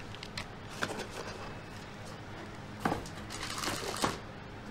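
Plastic and cardboard packaging being handled as motherboard accessories are unpacked: scattered rustles and small taps, with the loudest crinkling about three to four seconds in.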